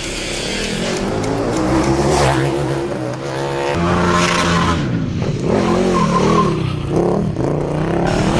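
KTM 1290 Super Duke R EVO's V-twin engine being revved hard, its pitch holding and then rising and falling quickly several times in the second half.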